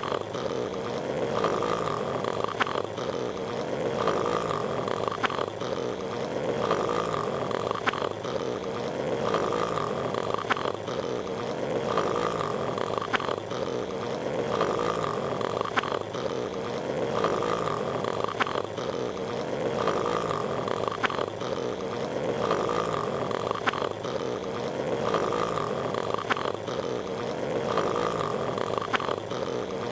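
Cartoon snoring from a looped clip, the same snore cycle repeating evenly about every 1.7 seconds, with a light click every few seconds.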